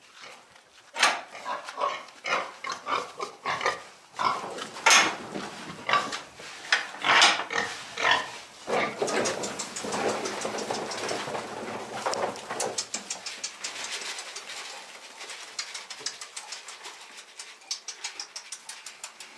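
Freshly weaned piglets squealing and grunting in their pen. Several loud squeals come in the first half, followed by quicker, softer grunting that thins out toward the end.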